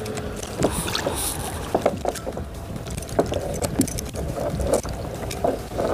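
Water lapping and slapping against a fishing kayak's hull, with scattered irregular knocks and clicks.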